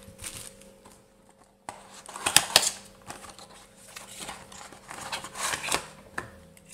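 Handling noise as cardboard fan boxes are moved and opened and a 120 mm PC fan is lifted out: scattered clicks, taps and rustles of cardboard and plastic. The loudest clatter comes about two and a half seconds in.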